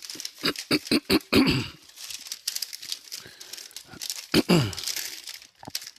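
Thin paper receipts rustling and crinkling as they are shuffled by hand, with sharp crackles in the first second and a half. A short throat sound, like a cough, comes about four and a half seconds in.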